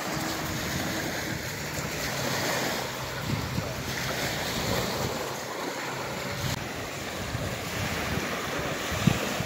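Small lake waves washing onto a pebble beach, with wind buffeting the microphone. A brief thump near the end.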